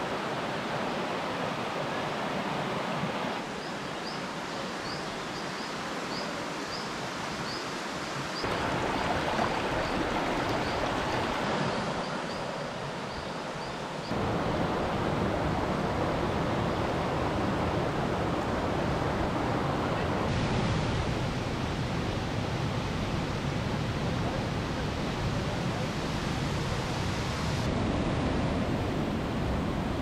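Rushing water of a rocky forest stream and small waterfalls, a steady roar that changes in level and tone every few seconds. From a few seconds in to about halfway, a series of short high chirps repeats about twice a second above it.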